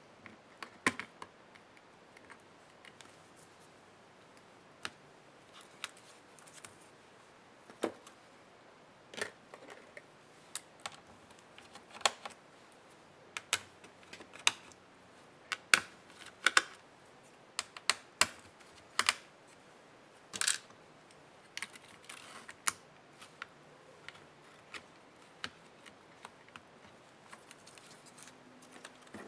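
Irregular sharp clicks and taps of hard plastic laptop parts and small tools being handled while a laptop is taken apart, one or two at a time with short pauses between them, busiest in the middle.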